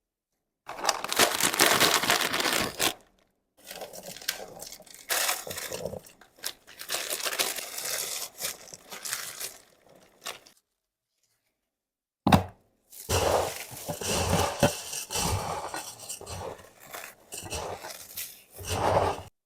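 Chatpate being prepared, heard in short edited cuts: dry crinkling, rustling and crunching noises, separated by abrupt silent gaps between cuts.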